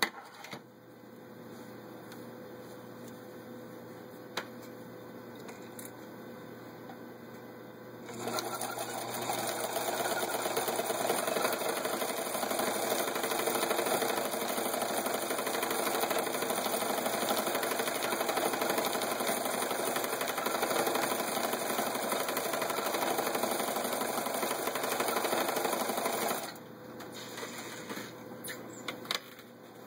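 Necchi Supernova Ultra sewing machine starts about eight seconds in and runs steadily at speed for about eighteen seconds, stitching a cam-driven embroidery pattern on fabric, then stops suddenly. A few light clicks follow near the end.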